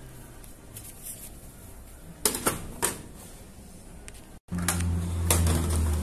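A few sharp plastic clicks about two seconds in as wiring-harness connectors are worked loose from a washing machine's control board. After a brief dropout near the end, a steady low drone starts.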